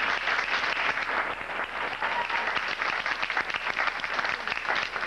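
Ringside audience applauding, many hands clapping in a steady, dense patter.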